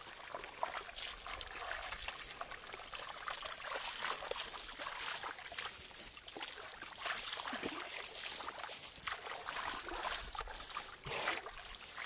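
Water sloshing and splashing in a large plastic tub as a pit bull is scrubbed by hand, a steady run of irregular small splashes.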